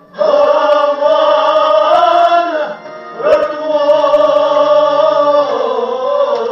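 A singer's voice performing a Kashmiri Sufi kalam in two long, drawn-out sung phrases, each held and bending in pitch, with a brief breath-like break a little under halfway.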